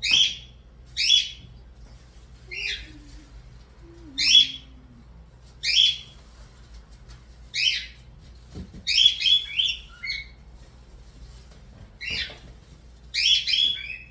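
A bird chirping over and over: short, high, downward-sweeping calls every second or two, with a quick run of two or three calls twice.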